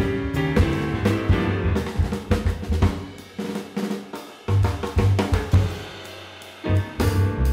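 Added background music with a drum kit keeping the beat under pitched instruments.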